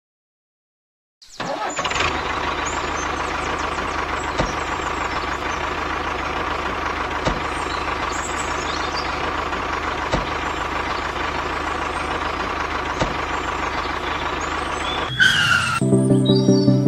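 A machine running steadily after starting about a second in, with a constant hum and a faint click about every three seconds; it cuts off near the end and music with a steady beat begins.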